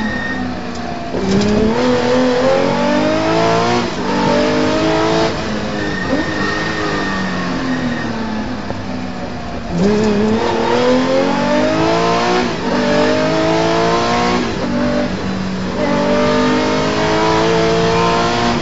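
Rally car engine heard from inside the cockpit, accelerating hard with the pitch climbing and dropping at each quick upshift. Around the middle it eases off and the pitch falls, then it accelerates through several more gears.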